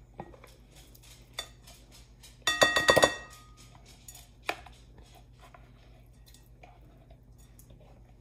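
A plastic bowl and a silicone spatula knocking and scraping against a glass mixing bowl as chopped tuna is tipped and scraped out. The loudest part is a quick cluster of clinks with a short glassy ring about two and a half seconds in. A single tap follows a little later, and light scraping ticks run through the rest.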